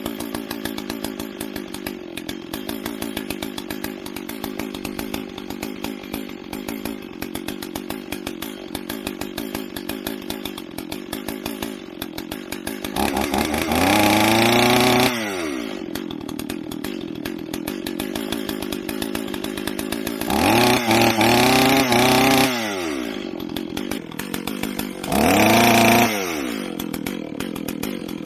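Stihl 044 two-stroke chainsaw idling steadily, revved up three times, each rev held briefly before the engine drops back to idle.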